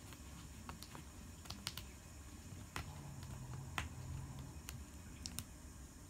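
African grey parrot's beak picking at and tearing a foam floor mat, giving irregular sharp clicks.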